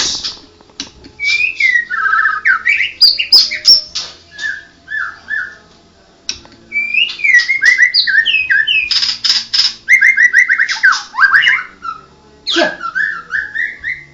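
White-rumped shama (murai batu, Medan strain) singing a loud, varied song of whistled phrases, slurred notes and rapid trills, in two long bouts with a short lull in between.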